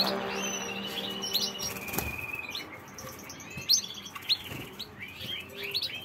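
Gloster canaries chirping with many short, rising calls scattered throughout, and a single soft thump about two seconds in.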